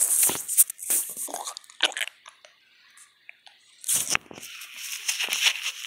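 Crunching and rustling of dry grass and leaves close to the microphone as toy dinosaurs are handled in it. The sound comes in irregular bursts, with a loud patch about four seconds in.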